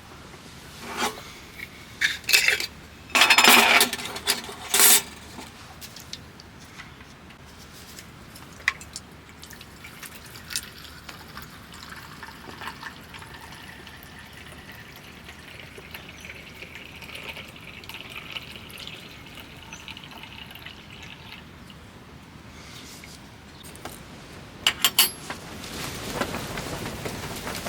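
Metal dishes or cookware clattering several times, then liquid being poured steadily for several seconds, with a few clinks near the end.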